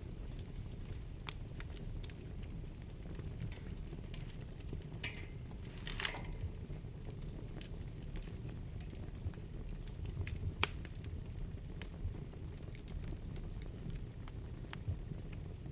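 Wood fire burning in a fireplace: a steady low rumble of flames with scattered crackles and pops, a brief hiss about six seconds in and a sharp pop near the middle.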